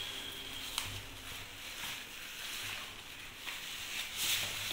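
Rustling and crinkling of a bag as it is opened and shaken out to empty it, growing louder about four seconds in, with a single short click just under a second in.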